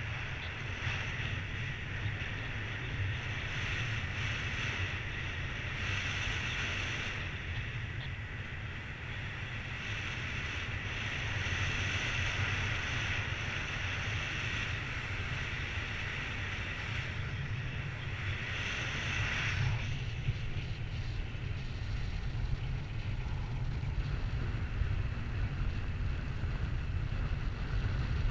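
Wind rushing over the microphone of a helmet-mounted camera in paraglider flight: a steady low rumble with a high airflow hiss that drops away about two-thirds of the way through.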